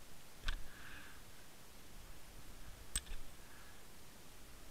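Two sharp clicks from an underwater camera rig on a fishing line, heard through the camera's housing, the first about half a second in and the second about three seconds in, over a faint hiss of water.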